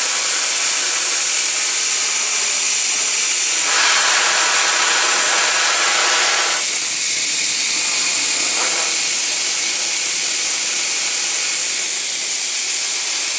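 Gas soldering torch burning with a loud, steady hiss. Its sound turns fuller for about three seconds around the middle, then settles back.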